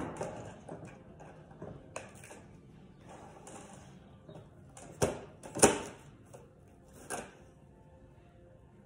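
Plastic cling film crackling and rustling as a sheet is pulled off the roll and handled, in a handful of short sharp crackles, the loudest about five and a half seconds in.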